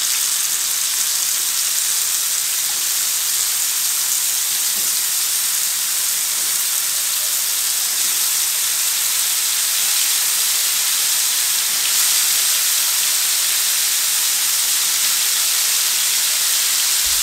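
Yogurt-marinated beef tikka pieces frying in hot oil in a nonstick pan: a steady sizzle that keeps going as more pieces are laid in.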